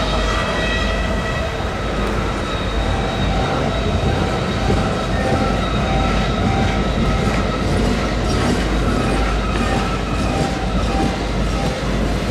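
Norfolk Southern mixed freight train's cars rolling past steadily, wheels clicking over the rail joints with a thin wheel squeal that is clearest in the first second or two and again near the end.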